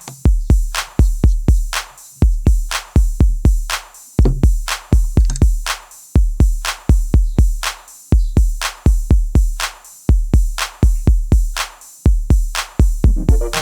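Background music: an electronic drum-machine beat with deep bass kicks and sharp snare hits, the pattern repeating about every two seconds.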